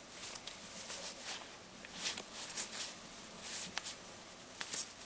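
Soft rustling and flicking of small paper matchbox-label stickers as stacks are lifted from their cardboard box and leafed through by hand, with a few light clicks.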